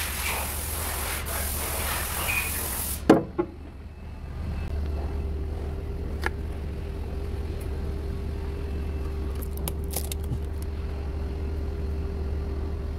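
A steady hiss stops abruptly with a sharp click about three seconds in. A steady hum with a faint constant tone follows, with a few light clicks as the new oil filter's cardboard box is handled.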